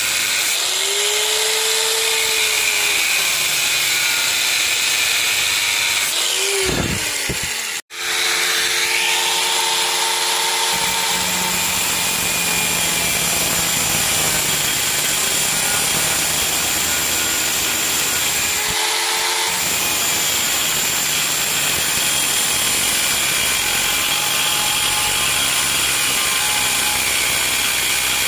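Angle grinder with a thin cut-off disc running at speed and cutting into truck leaf-spring steel: a steady high whine over harsh grinding noise. The sound cuts out abruptly for a moment about eight seconds in, then resumes.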